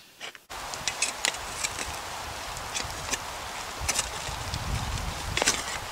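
Folding camp shovel scraping and knocking through ash and embers on slate: scattered sharp clicks and scrapes over a steady hiss.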